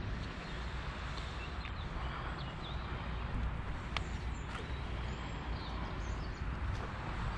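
Outdoor ambience: a steady low rumble with scattered short bird chirps.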